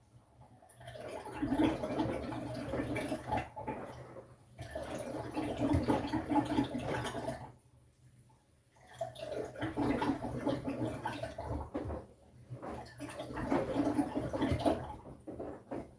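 Front-loading washing machine in its wash cycle: water and laundry sloshing in the turning drum in four surges of a few seconds each, with short pauses between. A steady low motor hum runs underneath.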